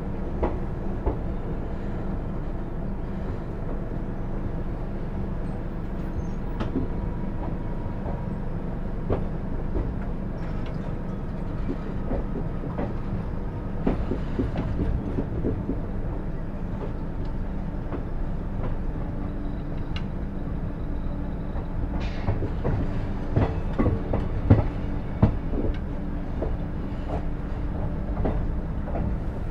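A passenger train running along the track, heard from on board: a steady low rumble of wheels on rail with irregular clicks and knocks from the wheels over rail joints. A few louder knocks come a little over three quarters of the way through.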